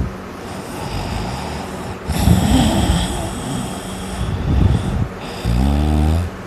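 Loud snoring, likened to a buzz saw: a rasping snore about two seconds in, noisy breathing, then a low buzzing snore near the end.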